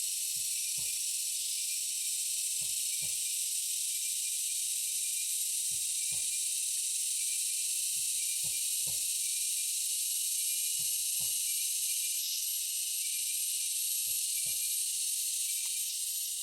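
Steady high-pitched drone of a jungle insect chorus, with a dozen or so soft, irregular knocks underneath.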